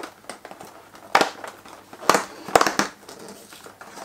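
Cardboard door of an advent calendar being pried open and the compartment rummaged, in several short crinkling, crackling bursts, the loudest about a second in and twice just after two seconds in.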